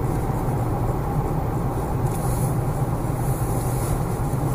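Steady engine and tyre road noise heard from inside a moving car's cabin, an even low hum with a hiss over it.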